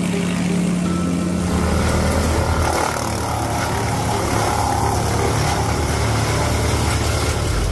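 Engine of a wood chipper running steadily at working speed, its hum dropping to a lower note about a second and a half in.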